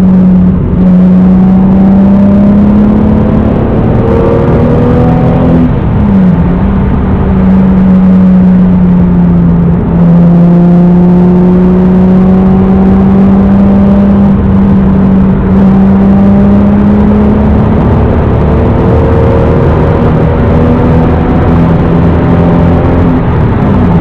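1993 Toyota Supra's naturally aspirated 3.0-litre straight-six (2JZ-GE) with aftermarket exhaust and K&N cold air intake, heard from inside the cabin while cruising under steady throttle. The engine note climbs slowly, dips briefly and picks up again about six seconds in, holds steady, rises again and then falls away sharply near the end.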